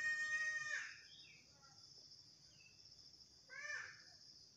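An animal calling twice: a long drawn-out cry that falls away about a second in, then a shorter cry about three and a half seconds in, over a steady high chirring of insects.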